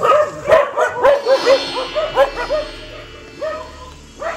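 Several dogs barking and yapping in quick succession, many short sharp barks overlapping. Steady music plays under them from about a second in to past the middle.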